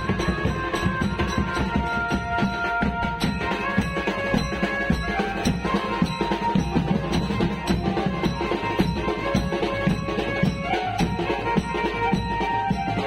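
Procession band music: several drums beaten with sticks in a steady, busy rhythm, with a melody playing over them.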